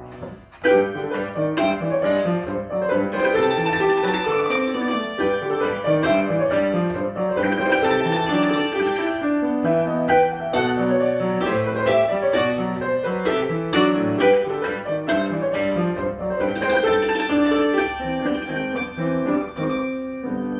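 Concert cimbalom played with hammers. After a brief break, a loud struck chord about half a second in opens a new passage of fast runs and repeated notes that ring on like a piano's.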